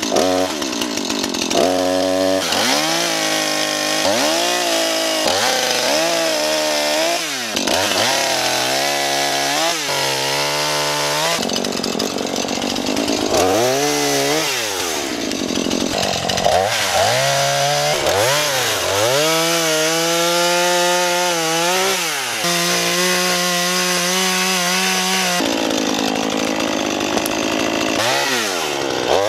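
Husqvarna two-stroke chainsaw being revved hard again and again, its pitch climbing and falling with each blip of the throttle, with a few stretches held steady at high revs.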